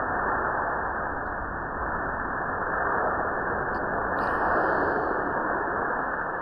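Propane wok burner flame and the searing wok, heard as a steady, deep, muffled rushing roar with no high end, the sound slowed down along with the slow-motion footage.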